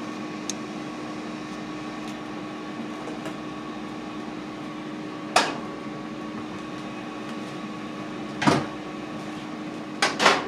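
Ninja air fryer running with a steady fan hum while cooking. A few short sharp knocks break in about halfway, again a few seconds later, and twice near the end as things are handled on the counter.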